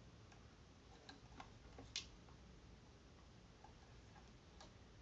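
Near silence with a few faint, scattered clicks and taps from the plastic parts of a ring light and its stand being handled and fitted together; the loudest click comes about two seconds in.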